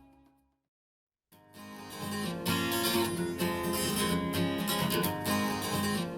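Music fades out, a moment of silence follows, and about a second in a new song starts with a strummed acoustic guitar intro that grows fuller a second later.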